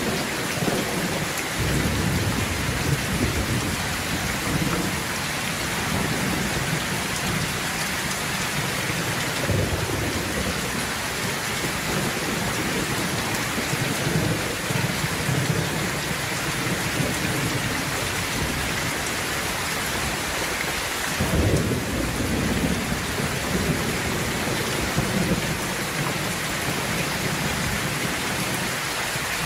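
Steady rain falling, with irregular low rumbles, the strongest about 21 seconds in.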